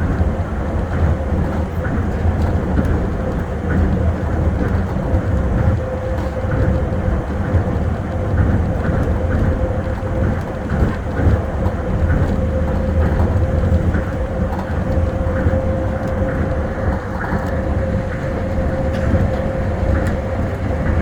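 Tokyo Monorail 1000-series train running at speed: a steady rumble of its rubber tyres on the concrete guideway, with a steady whine that comes in about four seconds in and holds, and faint scattered ticks.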